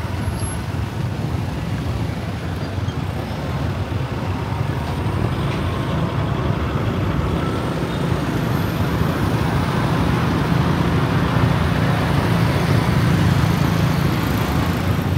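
Steady city road traffic: a continuous hum of passing motor vehicles, swelling somewhat louder in the second half.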